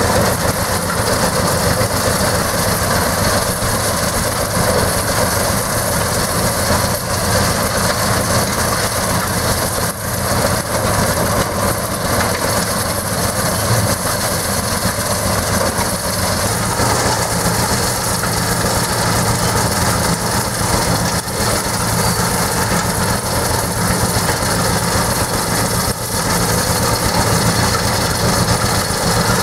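Rail-mounted bucket-chain excavator running: its chain of steel buckets rattles and clanks continuously around the ladder over a steady engine hum.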